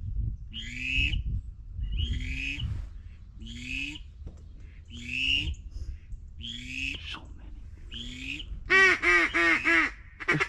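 Ducks quacking: a short call repeated about every second and a half, then a quick run of about eight quacks near the end.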